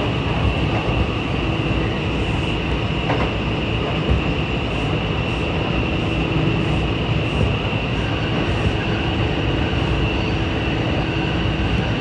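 Taipei Metro C301 train running at steady speed, heard from inside the passenger car: a steady rumble of wheels on rail and running gear, with a constant high whine over it.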